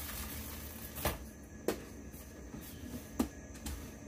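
Dried corn kernels rustling as they are brushed off a plastic dehydrator tray into a plastic bowl, then a few light plastic clicks as a plastic lid is handled and pressed onto the bowl.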